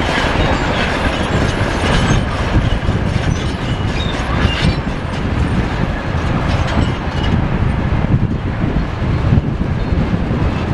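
Two demolition excavators working together: diesel engines running with a continuous heavy rumble, and scattered metallic clanks and knocks throughout.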